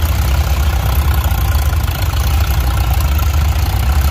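Farmall F-20 tractor's four-cylinder engine running steadily as it pulls a plow, a loud low rumble.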